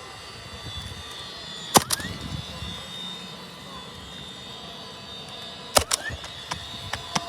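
Pneumatic roofing nail gun firing nails through asphalt shingles: a sharp shot a couple of seconds in, then a quick cluster of shots about four seconds later, with lighter clicks after.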